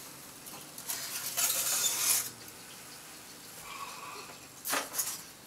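Cookie sheet carrying a baked motherboard scraping out over the oven rack with a rustle, then a few sharp knocks near the end as it is set down on the stovetop.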